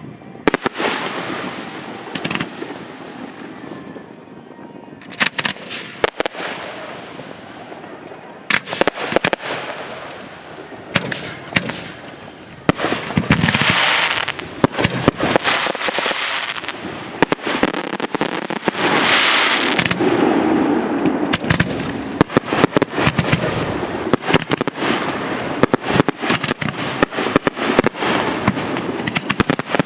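Fireworks display: aerial shells bursting with sharp bangs and crackling. The bursts come sparsely at first, then thicken about halfway through into a near-continuous barrage with crackling hiss.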